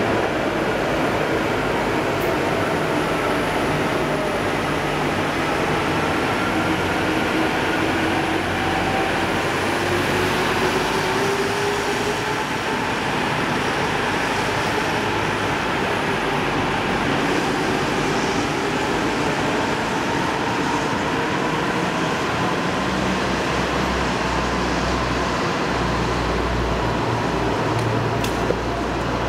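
Steady rumble of an underground transit station, with the motor whine of buses moving through the tunnel gliding slowly up and down in pitch. A deeper rumble builds over the last few seconds.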